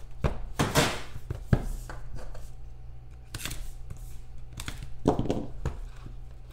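Hands opening a trading-card box and handling the small card box inside: a series of light knocks, taps and scrapes, over a steady low hum.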